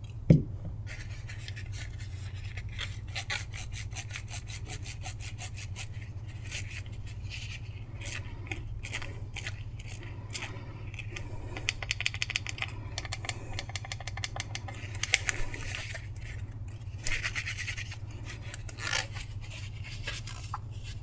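Rotary encoder behind a Samsung microwave's time knob being turned rapidly back and forth, giving streams of fine detent clicks in several bursts, to work alcohol contact cleaner into its dirty contacts, which make the time setting jump erratically. A single thump comes just after the start, over a steady low hum.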